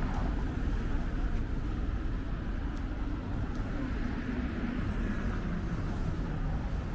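Steady city street noise: the low, even rumble of road traffic.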